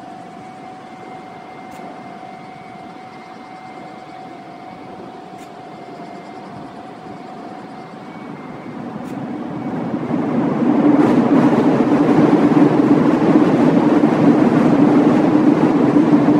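A faint steady whine for the first half, then a loud rumbling rush builds from about nine seconds in, holds and falls away near the end: a vehicle crossing the concrete bridge overhead.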